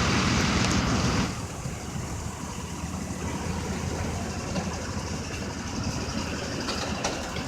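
A vehicle engine idling with a steady low rumble. A louder rushing noise covers it for about the first second, then drops away.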